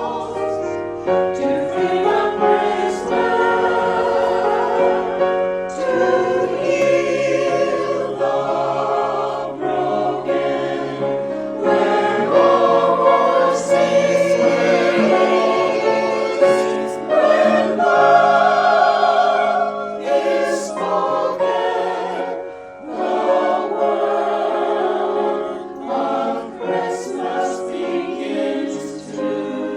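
Church chancel choir singing a choral anthem in harmony, with held notes and vibrato and short breaths between phrases.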